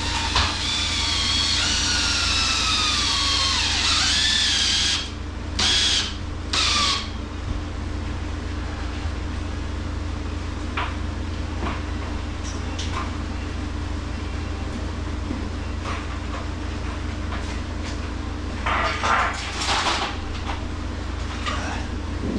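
Power drill driving long screws up into the ceiling: a long run with the motor's whine falling in pitch as the screw loads it, then a few short trigger bursts, and two more bursts near the end.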